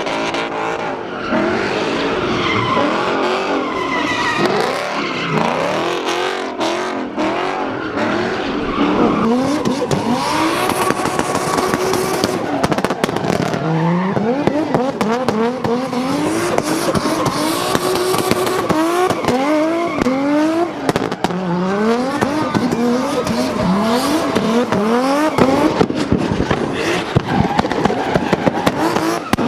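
Drift car engines revving hard, their pitch climbing and dropping again and again as the cars slide, over a steady tyre squeal. Sharp pops break in here and there.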